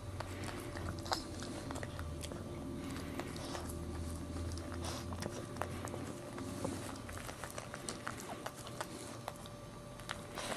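Maltese mother dog licking her newborn puppy clean, a run of wet, irregular licking and smacking clicks from her tongue and mouth.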